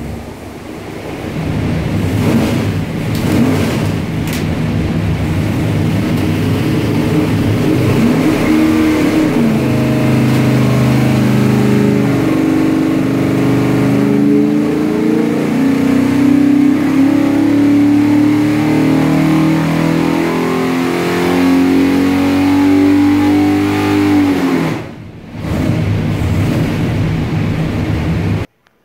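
598-cubic-inch big-block Chevrolet V8 marine engine running on an engine dyno. It runs fairly steadily at first, then makes a loaded pull with the pitch climbing slowly for about fourteen seconds. The throttle then closes and the revs drop, and the sound cuts off suddenly near the end.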